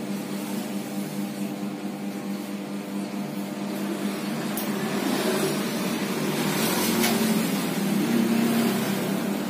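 Steady mechanical hum over a haze of noise, with two short clicks about four and a half and seven seconds in.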